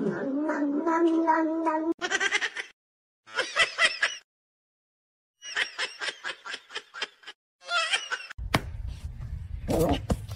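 A cat's long, drawn-out meow, held on one pitch, that stops about two seconds in. It is followed by a kitten's rapid, high cries in short bursts with brief silences between them, and near the end by a low rumble of wind on the microphone.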